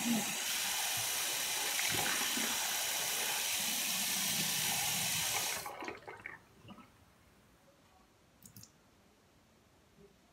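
Water tap running steadily into a sink, then turned off about five and a half seconds in.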